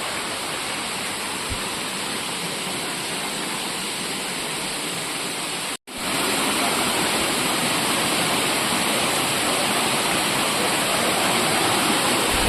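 Waterfall rushing: a steady noise of falling water. It cuts out for an instant about halfway through and comes back slightly louder.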